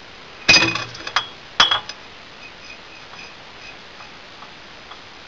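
A glass bottle clinking against a hard surface: one loud ringing clink about half a second in, then three lighter clinks within the next second and a half, followed by faint small ticks.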